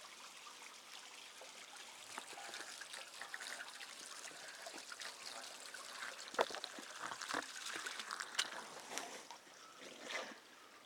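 Water running from a hose-fed jetting pipe, splashing and trickling into the lake as the pipe is lowered in. A few sharp knocks come in the second half.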